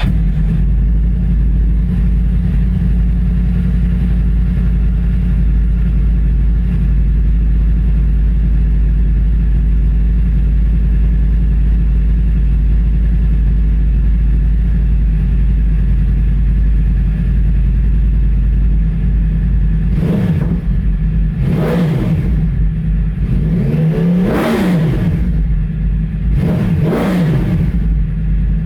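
2009 Yamaha YZF-R1's crossplane-crank inline-four, with its uneven 'big bang' firing, idling steadily, then revved with about four throttle blips in the last nine seconds, each rising and falling in pitch.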